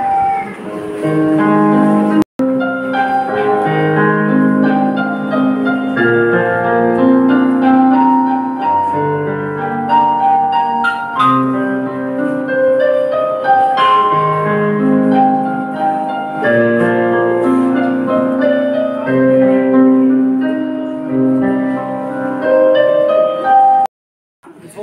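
Piano-toned keyboard music playing a slow melody over held chords. It breaks off briefly about two seconds in and cuts off shortly before the end.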